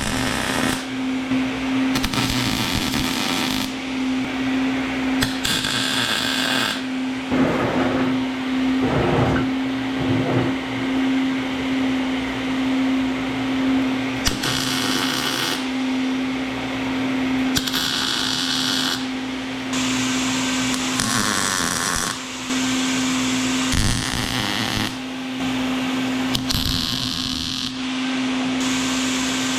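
MIG welder laying a series of short tack welds, each a crackling burst of a second or two at uneven intervals, over a steady hum.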